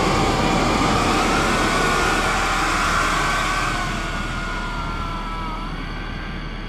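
A vehicle passing and moving away: a steady noise carrying high tones that slide slowly, dropping in pitch and fading away over the last few seconds.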